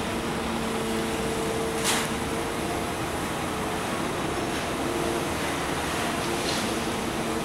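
Kobelco hydraulic excavator's engine and hydraulics running steadily as it swings and digs crushed rock, with a few held tones over the drone. A single sharp knock comes about two seconds in.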